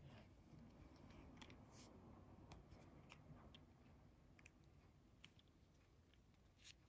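Near silence with faint, scattered small clicks and light rustling, a slightly louder click at the very start and another near the end.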